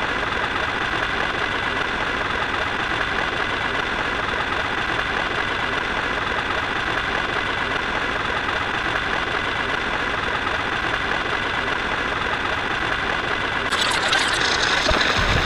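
A steady mechanical running sound, like an engine idling, that changes to a louder, fuller sound near the end.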